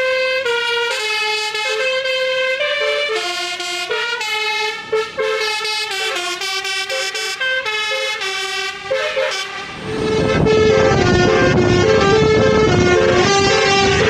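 Basuri telolet horn, an electric multi-tone musical horn, playing a tune of quick stepped notes. About ten seconds in, heavy wind rush on the microphone joins as the horn tune carries on.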